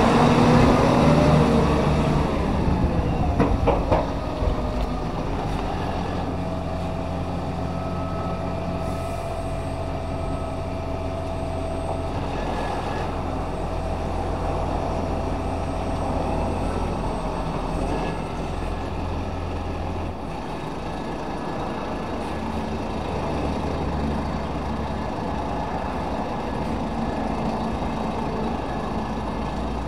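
Automated side-loader garbage truck's diesel engine running, loud as the truck pulls past close by at the start, then a steady low idle from across the road. A steady high whine sits over the engine for several seconds in the middle.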